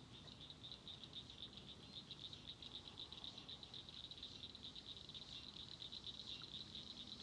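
Faint, steady dusk chorus of many small calling animals, high-pitched and rapidly pulsing, the calls overlapping without a break.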